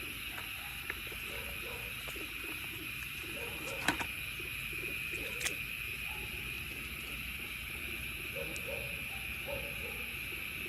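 Short, low hooting animal calls repeating irregularly over a steady high-pitched drone, with two sharp clicks about four and five and a half seconds in.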